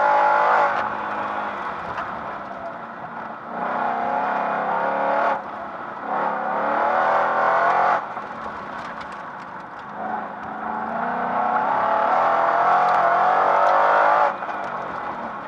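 Competition car's engine revving hard under full throttle through an autocross course. The engine note climbs in long pulls, then drops off sharply about four times as the throttle lifts for corners and picks up again.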